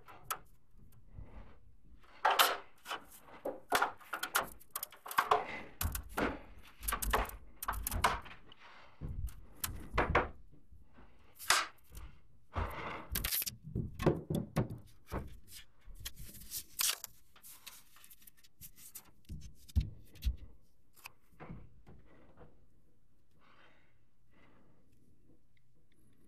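Irregular thumps, knocks and scrapes of someone on a ladder handling a ceiling attic-access hatch. The knocking is busiest through the first two-thirds and dies away after about twenty seconds.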